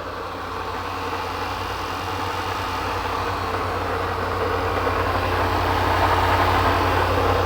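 Supercharged 5.0-litre V8 of a Range Rover Sport idling steadily on its first start of the day, with an odd drone ("ronco") mixed into the engine sound, which the mechanic takes for a bearing, in the supercharger or one of the accessory-belt pulleys. It grows slowly louder.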